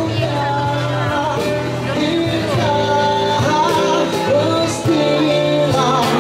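Live band music: a man singing into a microphone over guitar and a steady bass, played through a PA.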